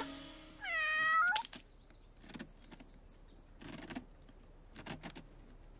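A cartoon cat's short meow about half a second in, followed by faint scattered taps and knocks.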